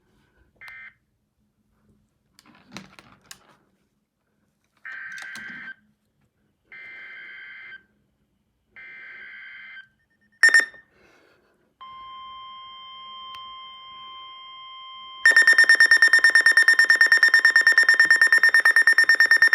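Emergency Alert System tones: three short buzzy data bursts about a second each, a sharp beep, then a steady alert tone. From about 15 seconds in, a loud, rapidly pulsing electronic alarm tone takes over and is the loudest sound.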